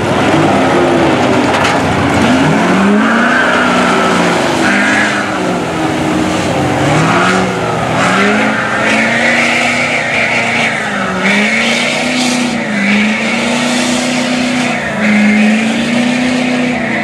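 Engine of a lifted Ford Super Duty mud truck on tractor tires revving up and down again and again, then held at high revs through the last few seconds as the tires churn through deep mud, with the noise of mud being thrown.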